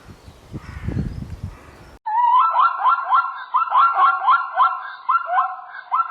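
Low thuds and rustling for about two seconds, then a bird calling in a fast series of short, rising notes, about three or four a second, with a brief break partway through.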